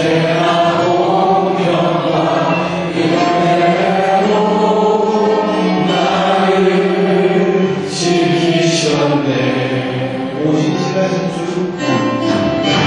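A church praise team sings a Korean gospel song. Men sing into handheld microphones, holding long notes.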